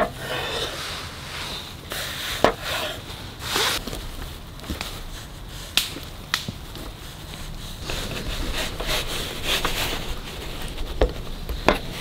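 Kitchen knife sawing through a thick slab of bacon, with several sharp knocks as the blade meets the wooden cutting board.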